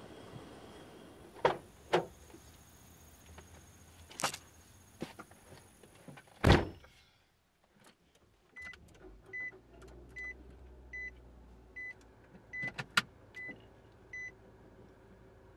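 A few sharp knocks, then a car door shutting with a heavy thump. After that, a car's dashboard warning chime beeps steadily, about once every 0.8 seconds, with a couple of sharp clicks among the beeps near the end.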